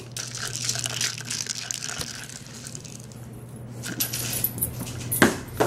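Dry kibble rattling and clicking inside a plastic treat-dispensing ball as a puppy pushes and rolls it along the floor. The rattle is busiest in the first couple of seconds, then sparser, with a sharper knock about five seconds in.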